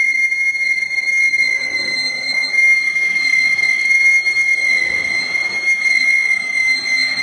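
Big lathe turning a large steel roller, with a steady high-pitched metallic squeal over a low machine rumble.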